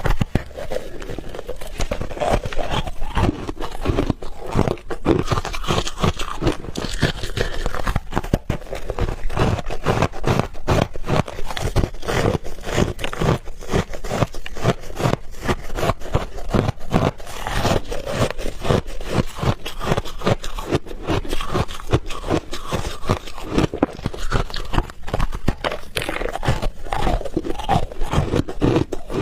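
Refrozen ice balls being bitten and chewed close to the microphone: a steady run of dense, crisp crunches and cracks.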